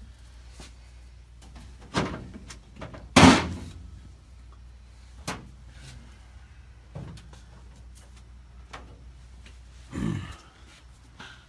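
Scattered knocks and clunks from work on a drag car. The loudest, a sharp bang, comes about three seconds in; smaller knocks follow about two, five, seven and ten seconds in.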